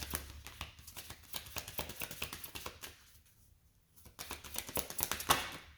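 Tarot deck being shuffled: a rapid run of card clicks, a pause of about a second, then a second run ending in a sharper snap.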